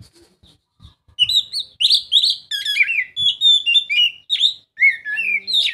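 Oriental magpie-robin (kacer) singing a rapid, varied run of whistled notes, starting about a second in after a short pause.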